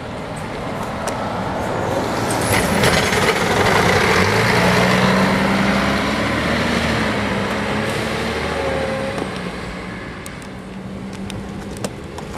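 Single-deck bus engine running as the bus passes close by: it gets louder over the first few seconds, with its note rising as it pulls away, then fades as the bus drives off.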